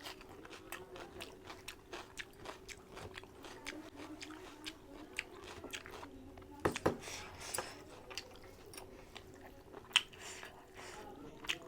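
Close-miked eating of spicy mutton curry: wet chewing and mouth clicks go on throughout, with a louder bite about seven seconds in and a sharp one near the end.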